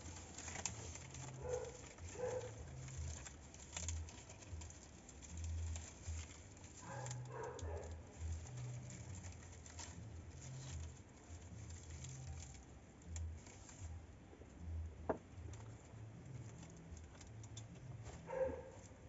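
Palm fronds rustling as they are handled and fitted by hand onto a shelter's pole frame, with one sharp click about fifteen seconds in.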